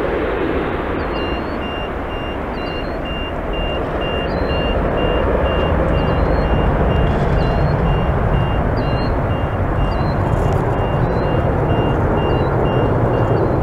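Boeing 777 Freighter's two GE90-110B1L turbofans at takeoff thrust, a loud steady roar as the jet climbs away, with the low rumble growing stronger partway through. A faint high beeping repeats about three times a second behind it.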